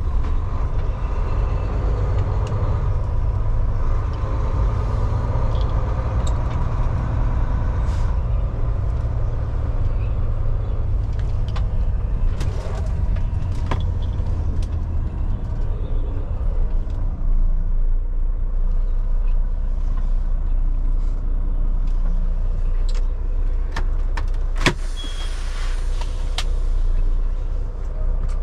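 Semi truck's diesel engine running at low speed, heard from inside the cab, its rumble heavier in the first half and settling lower after. A few light clicks, then near the end a sharp knock followed by a brief hiss.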